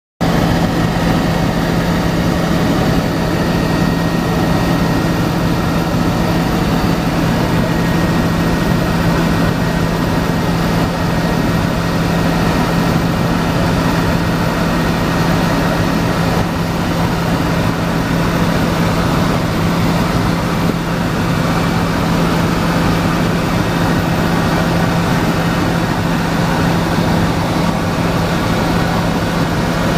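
Helicopter engine and rotor running steadily in flight, heard from inside the cabin: a loud, even noise with a constant low hum.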